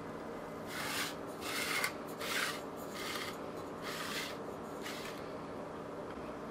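Thin utensil scraping through thick chiffon cake batter in an aluminium tube pan: about five short scraping strokes in the first five seconds, over a steady low hum.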